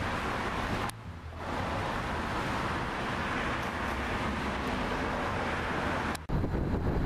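Steady road traffic noise from a city street, with a short drop about a second in; near the end it breaks off sharply and comes back louder and deeper.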